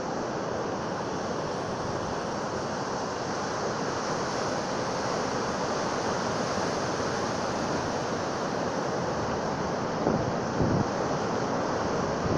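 Heavy storm swell breaking on a beach: a steady wash of surf. Wind buffets the microphone in a few gusts about ten seconds in.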